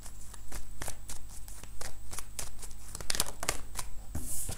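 A deck of cards being shuffled by hand: a quick irregular run of soft card snaps and slides, bunching densely about three seconds in. A card is then slid out and laid on the table near the end.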